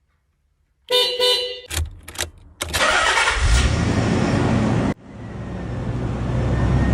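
A 1996 Nissan 300ZX Twin Turbo's horn sounds once, briefly, about a second in. Then its twin-turbo 3.0-litre V6 starts and runs. After a cut near the end it idles steadily with a faint high whine.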